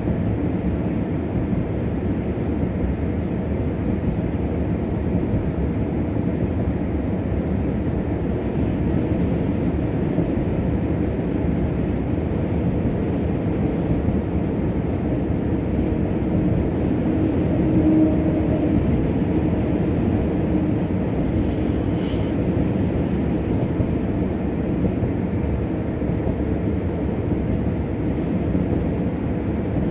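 Steady tyre and road noise of a car driving at speed, heard from inside the cabin, with a faint low hum that swells slightly a little past halfway.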